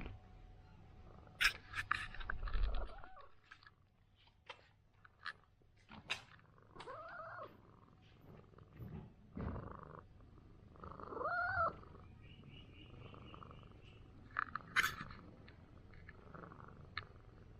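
Orange domestic cat purring steadily while being massaged, with rustles and sharp clicks from the handling. It gives two short meows that rise and fall, about seven and eleven seconds in.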